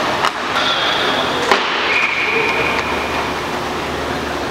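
Inline hockey play on a rink floor: a steady rolling rush of skate wheels, with sharp clacks of sticks or the puck about a quarter-second and a second and a half in.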